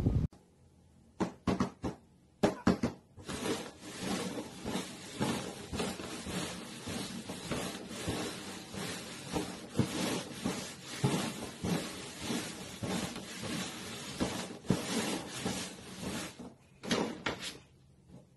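Paper cups being slid and tapped about on a cardboard box top for a shell game: a few separate taps, then a long run of quick knocks and scraping clatter that stops near the end, followed by a couple of last taps.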